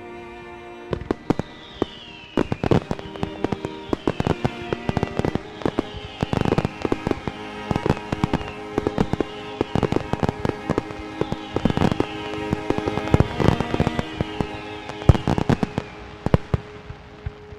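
Fireworks going off in rapid, irregular bangs and crackles, laid over music with long held tones.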